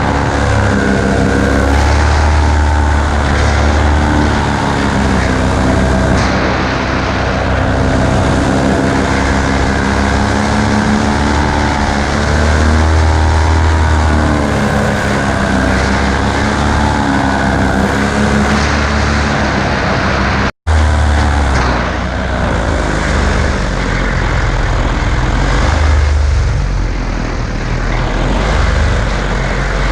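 Paramotor engine and propeller running, the pitch wavering up and down, over heavy wind noise on the microphone. The sound drops out for an instant about twenty seconds in.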